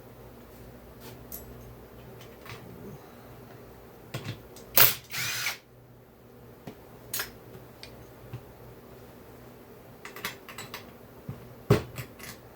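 Tools clicking, clanking and rattling on metal chainsaw parts during a teardown, as the compression release is being taken out. A loud, half-second rattling burst comes about five seconds in, with a few more sharp knocks near the end.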